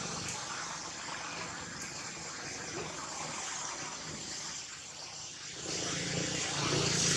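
Steady outdoor background noise with a thin high constant tone above it; a low hum grows louder near the end.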